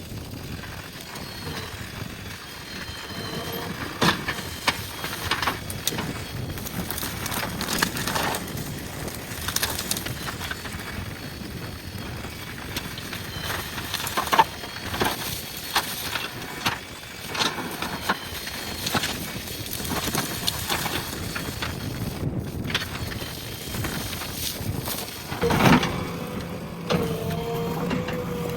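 JCB backhoe loader clearing brush: repeated cracking, snapping and crunching as bushes and branches are broken and crushed under the machine's bucket, over the running diesel engine. A steady engine hum comes up near the end.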